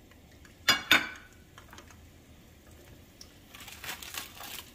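Two sharp clinks of kitchen dishware about a second in, then a dry, crackly rustle near the end as dried chiles are picked up from a plate.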